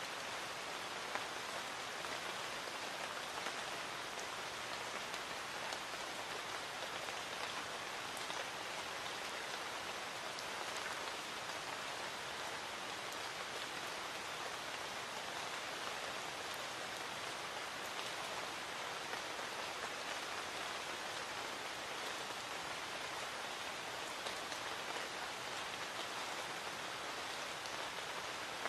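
Light rain falling steadily: an even hiss of rain with scattered individual drops tapping now and then.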